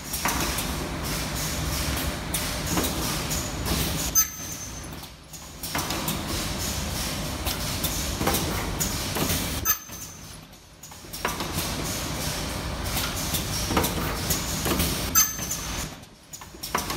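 Elastic-band ultrasonic welding and cutting machine running in cycles: a steady mechanical running noise, with a sharp click about every five and a half seconds, each followed by a brief lull.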